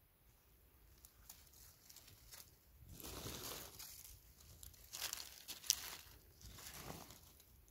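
Dry leaf litter and pine needles rustling and crackling in a few short bursts as freshly picked porcini are handled and set down on the forest floor, with one sharp snap a little past the middle.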